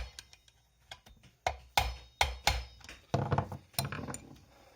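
Hand tools knocking and clinking against chainsaw parts during clutch reassembly: a series of sharp taps, with a quick run of them about three seconds in.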